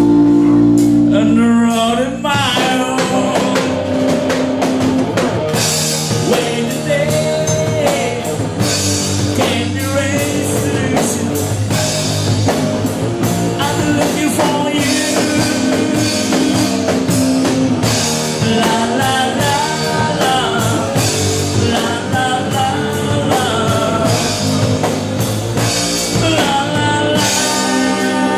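Live rock band playing: a man sings over electric guitars and a drum kit, with cymbals and drums struck throughout.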